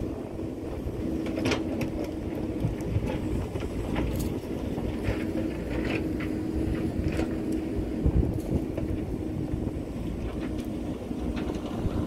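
JCB backhoe loader's diesel engine running steadily, with scattered clicks and knocks of stones.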